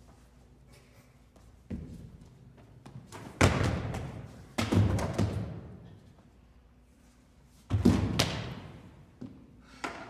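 A few heavy thuds, three of them loud, each dying away over about a second in a large, echoing hall.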